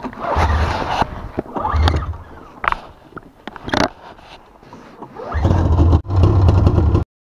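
Arctic Cat snowmobile engine being started: it catches in two short bursts, then runs for over a second near the end before the sound cuts off suddenly.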